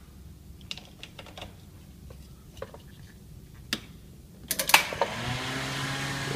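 Plastic jump-starter clamps clicking and rattling as they are clipped onto car battery terminals. About five seconds in, after a burst of louder clicks, a 2000 cc car engine starts on the jump and settles into a steady idle, its pitch rising briefly as it catches.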